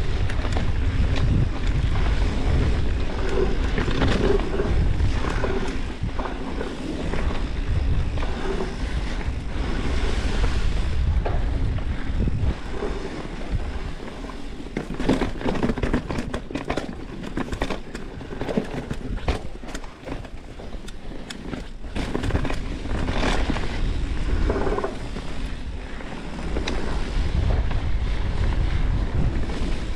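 Wind rushing over the microphone of a mountain bike rider's camera as the bike rolls along a dirt trail, with a stretch of rattling and clattering knocks from rough ground about halfway through.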